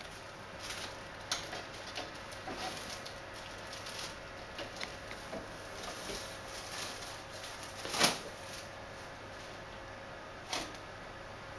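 Clear plastic lamination film rustling and crinkling as it is pulled off its roll and threaded by hand through a roll laminator, with scattered light clicks. A louder crackle comes about eight seconds in and a shorter one near the end.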